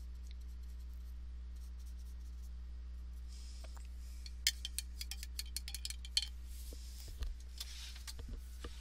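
Paintbrush rattling and clinking against the side of a water cup as it is rinsed, a quick run of small clicks about halfway through, followed by a few softer knocks. A steady low electrical hum runs underneath.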